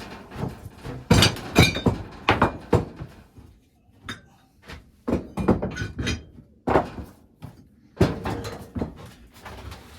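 Irregular thunks, knocks and metal clinks from a wood-burning stove being handled and its steel legs fitted, with a quieter pause partway through.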